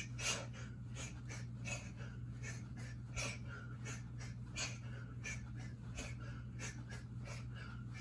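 A man's short, sharp exhalations while shadowboxing, about three a second in an even rhythm, one with each punch and slip, over a low steady hum.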